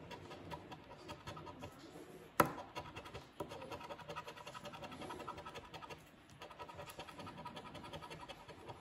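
A coin scratching the coating off a scratch card: rapid, faint rasping strokes, with one sharp click about two and a half seconds in.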